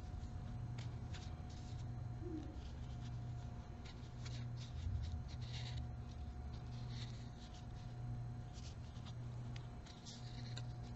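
Crochet hook working yarn: faint, irregular scratching and light clicks as stitches are pulled through, over a low steady hum.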